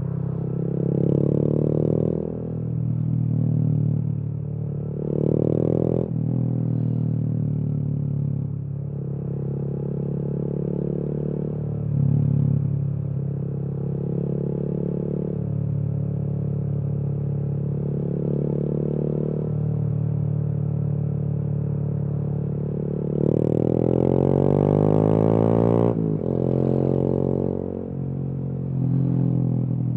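A 2020 Honda MSX/Grom 125's single-cylinder four-stroke engine, run through a Kemimoto aftermarket exhaust, heard from the rider's seat while riding. It takes a couple of short rising pulls early on, then holds a steady note. About three-quarters of the way in it makes one long climbing rev that cuts off sharply, then gives another brief pull.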